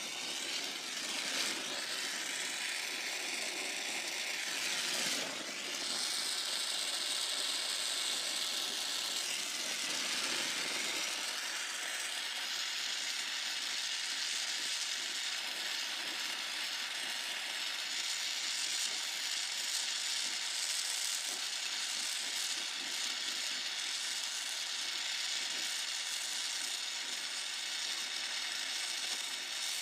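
Steady hiss of a brazing torch flame heating copper line joints, its tone shifting during the first ten seconds or so and then holding steady.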